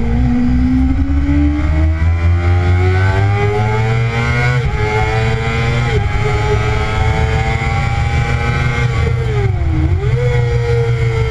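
Kawasaki ZX-6R inline-four engine heard onboard, pulling hard out of a corner with a steadily rising note, then holding high revs with short dips in pitch about four and a half seconds in, at six seconds and near the end, each picking straight back up. A heavy low wind rumble on the microphone runs under it.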